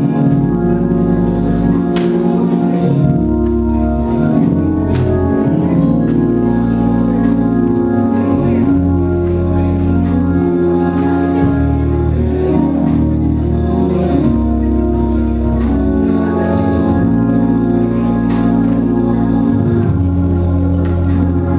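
Organ playing slow, held chords over a bass note that changes every couple of seconds.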